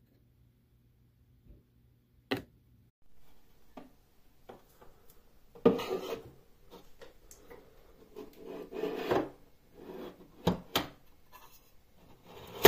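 A sharp plastic click as a food-container lid is pressed home, about two seconds in. Then a ribbed plastic-and-metal piece is pushed into a narrow gap beside a cabinet drawer, rubbing and scraping against the wooden panels with irregular knocks, the loudest knock near the end.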